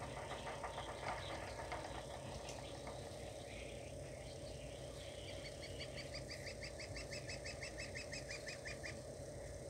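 Faint, fast run of high chirps, about six a second, starting about five seconds in and stopping shortly before the end, over a low steady hiss, heard through a TV's speaker.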